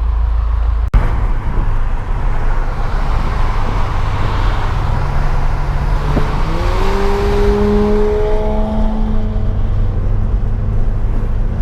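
Subaru Legacy 3.6R flat-six running through a Nameless Performance axle-back exhaust with a steady, loud drone. After a brief break about a second in, its pitch climbs gently from about halfway as the engine picks up revs.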